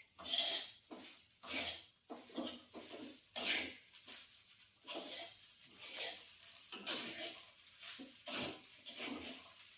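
A spatula scraping and stirring fried rice in a pan, in repeated strokes about once or twice a second.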